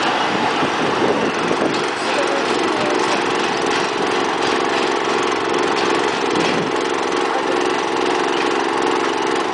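ChME3 shunting locomotive's six-cylinder diesel engine running steadily as the locomotive moves away along the track.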